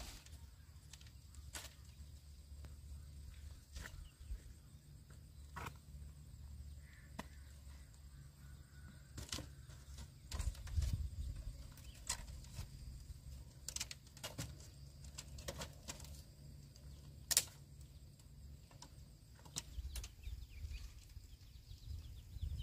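Faint rural outdoor ambience: a steady low rumble with scattered sharp clicks and taps every second or two, the loudest about three-quarters of the way through.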